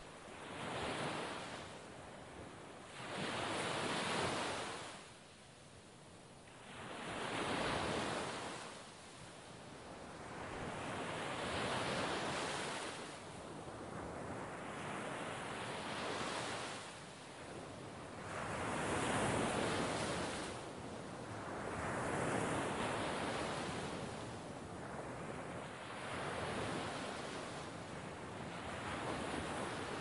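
Sea waves breaking on the shore, each surge swelling and fading about every three to four seconds.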